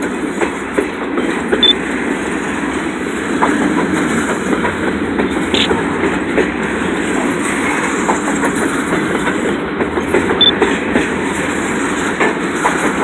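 Freight train cars loaded with bottled-water containers rolling past, a steady rumble with clickety-clack from wheels over the rail joints, and two brief high squeaks.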